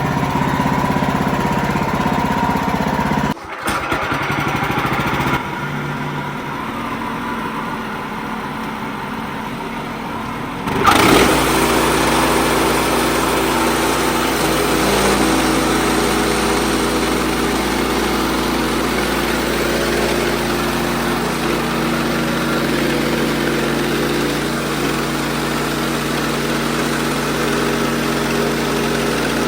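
Wood-Mizer LX55 band sawmill running steadily while milling a poplar log, its engine humming under the cut. The sound changes abruptly twice, about three and a half seconds in and again about eleven seconds in.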